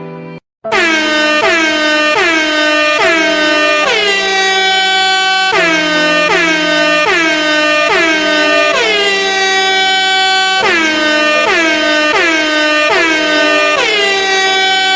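Air horn sounding a tune: runs of short blasts, two or three a second, each phrase ending on a long held note, three times over. It starts after a brief gap and cuts off abruptly at the end.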